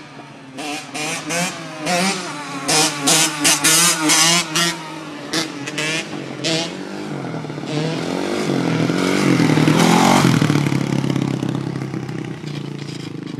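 Motorcycle engine revved in short, sharp bursts for the first several seconds, then a bike coming up the street, its engine note building to its loudest about ten seconds in and easing off near the end.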